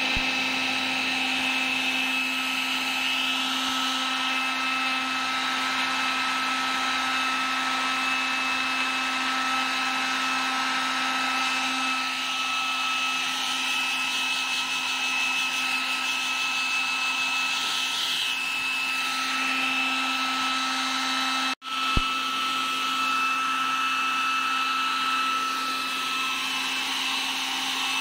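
Handheld electric hair dryer running steadily, blowing on a wet cat to dry its fur, a steady rush of air with a motor hum and a high whine. It starts abruptly, then cuts out for a split second about twenty-two seconds in and comes back with a click.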